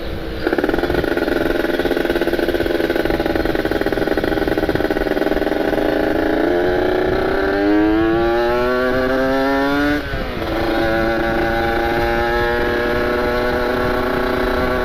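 Kawasaki Ninja RR's ported 150 cc two-stroke single running under way at a steady note. Then it revs up, rising in pitch for about three seconds, drops sharply at a gear change about ten seconds in, and settles into a steady note again.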